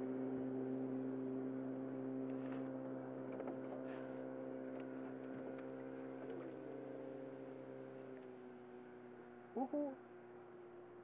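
A motorboat engine runs steadily at a distance and slowly fades away, its pitch dipping about two thirds of the way through. Near the end, two short, loud calls rise in pitch.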